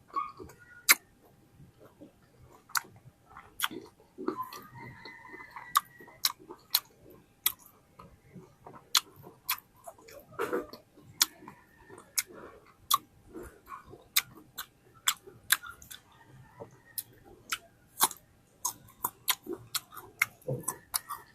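Close-up chewing of juicy fruit, with frequent sharp, irregular wet mouth clicks and lip smacks, several a second.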